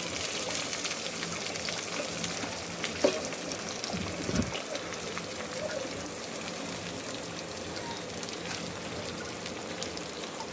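Onion and garlic, with dried red chillies, sizzling as they fry in hot oil, with a couple of brief knocks against the pan about three and four seconds in.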